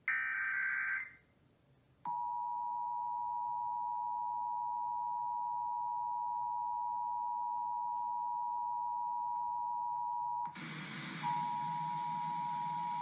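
Emergency Alert System broadcast tones: a burst of warbling digital header data tones lasting about a second, a short pause, then the steady two-tone EAS attention signal (853 and 960 Hz together) starting about two seconds in. Near the end a burst of hiss covers it and the tone drops out for under a second before it resumes.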